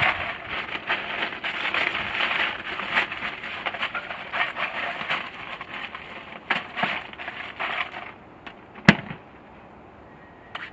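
Ice cubes rattling and crackling in a plastic bag, a dense clatter that stops about eight seconds in, followed by one sharp click about a second later.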